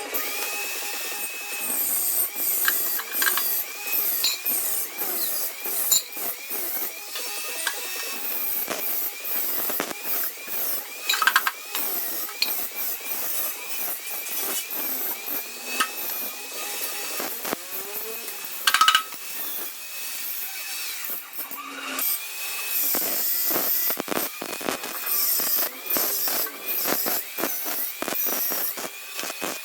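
Power tool, most like an angle grinder, working the sheet-steel body of a Vespa: a high motor whine that repeatedly dips and recovers as the tool is pressed into the metal, over a harsh grinding hiss with scattered sharp ticks.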